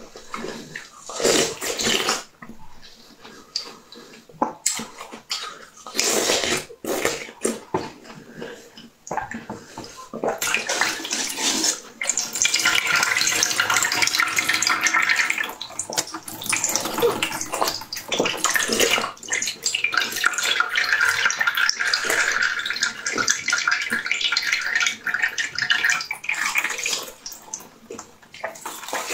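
Close-up crunching of a block of frozen blue ice being bitten and chewed: separate sharp cracks of single bites at first, then dense, continuous wet crunching from about halfway through until near the end.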